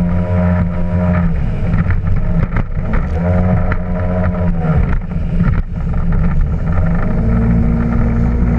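Yamaha WaveRunner jet ski engine running at speed, its pitch dropping off and picking up again a couple of times, then settling lower near the end, with water splashing and slapping against the hull.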